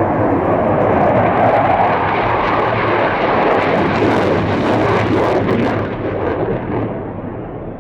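Panavia Tornado GR4 jet passing low with its twin RB199 turbofans, a loud crackling jet noise that fades away over the last couple of seconds as it departs.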